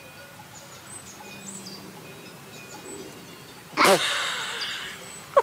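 Birds chirping faintly. About four seconds in, a woman lets out a sudden, loud, breathy vocal exclamation that fades over about a second, with a short sharp one at the very end.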